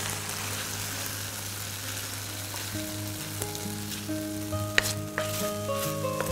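Freshly cooked sliced meat sizzling in a hot frying pan as it is tipped and scraped out onto a plate, with a few sharp clicks of the utensil against the pan from about three seconds in.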